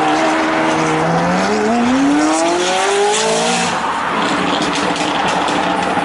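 Straight-piped McLaren 570S twin-turbo V8 accelerating hard, its engine note rising steadily for about two and a half seconds. Near the four-second mark the rise ends and the exhaust runs on with crackling.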